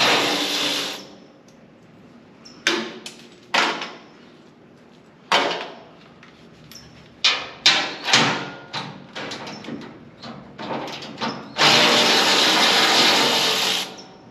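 Handheld cordless power tool running in two bursts on bolts, at the start and again near the end, with sharp metal clanks of tools and parts in between.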